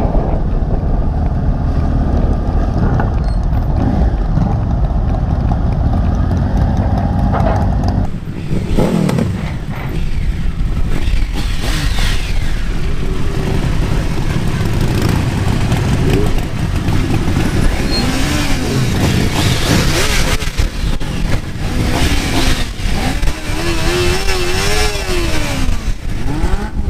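Motorcycle engines running with wind rush while riding, then after a cut several motorcycles idling and being revved, engine pitch rising and falling a few times.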